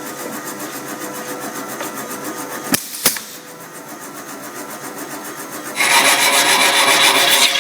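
MS3112 drilling-and-slotting woodworking machine running steadily, with two sharp knocks about three seconds in. Near the end a much louder rasping noise lasts nearly two seconds as the bit cuts into wood.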